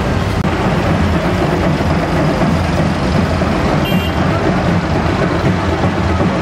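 A vehicle engine running steadily: a loud, constant low rumble with no break. A short faint beep sounds about four seconds in.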